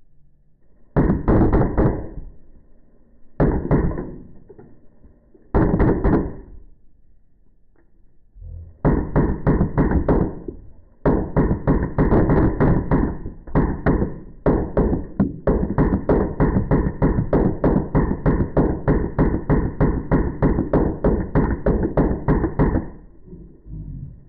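Drozd Blackbird electronic BB gun firing in rapid bursts: three short bursts, then long strings of shots at about seven a second with a few brief breaks, stopping suddenly near the end.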